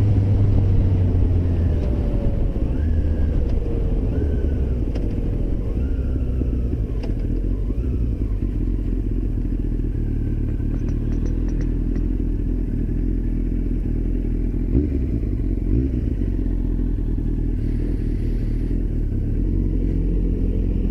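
Yamaha FZ1 inline-four motorcycle engine running as the bike slows down, its note falling in the first few seconds, then a steady low drone at low speed.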